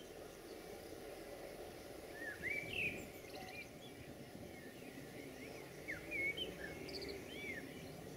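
Small birds chirping and calling in short, quickly rising and falling whistled notes, loudest about two to three seconds in and again around six seconds in, over a steady low background hum.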